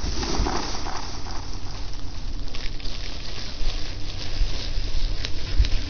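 Rustling and rubbing handling noise from a body-worn camera brushing against clothing, with a few soft clicks and low thumps from bumps against the microphone.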